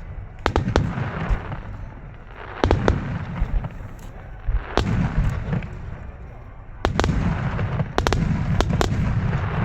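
Starmine fireworks display: shells bursting in quick clusters of sharp bangs, each followed by a low rolling rumble and crackle.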